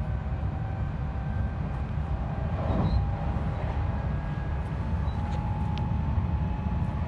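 Commuter train running, heard from inside the passenger car: a steady low rumble with a faint steady tone above it.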